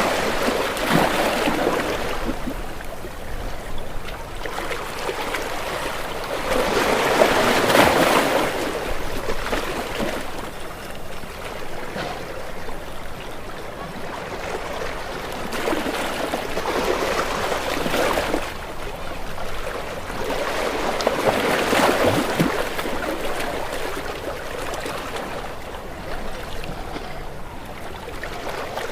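Ocean waves breaking against rocks, a continuous wash of water that swells into four larger surges several seconds apart and falls back between them.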